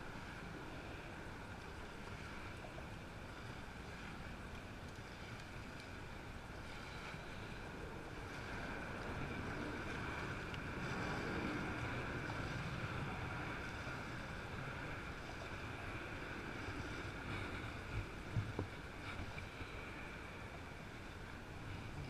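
Steady outdoor background noise: a low rumble under a steady hiss that swells for a few seconds in the middle, with a few soft knocks near the end.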